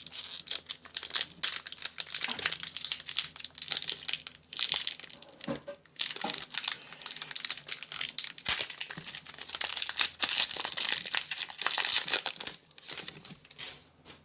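Foil-lined Pokémon booster pack wrapper crinkling and tearing as it is opened by hand, a dense run of crackles that eases off near the end.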